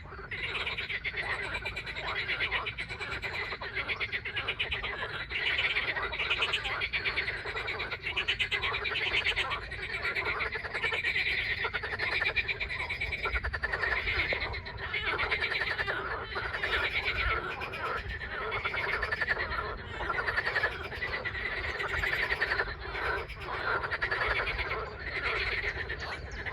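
Chorus of many frogs calling at once: overlapping fast-pulsed croaks with no break, swelling and easing every few seconds.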